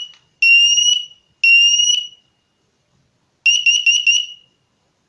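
Ecoey combination smoke and carbon monoxide alarm sounding its self-test: loud, high-pitched long beeps finishing the smoke alarm's three-beep pattern, then after a pause about three seconds in, four quick beeps of the carbon monoxide pattern.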